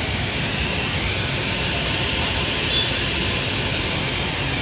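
Steady hiss at a charcoal kebab grill with meat skewers cooking over the coals, even throughout with no distinct clicks or tones.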